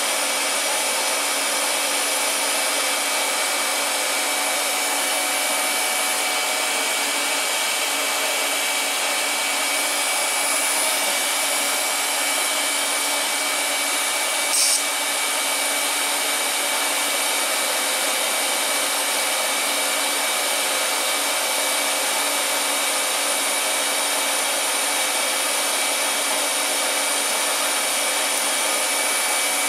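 Steady blower-like whoosh with a few faint steady tones running through it, unchanged whether or not the TIG arc is lit; a short sharp click about halfway through.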